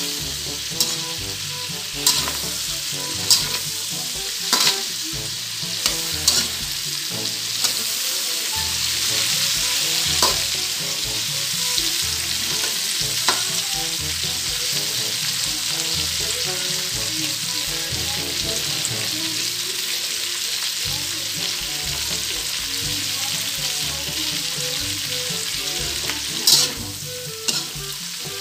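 Yardlong beans and pork sizzling steadily as they stir-fry in a wok. A slotted metal spatula scrapes and clacks against the pan about once a second for the first several seconds, then again a couple of times near the end.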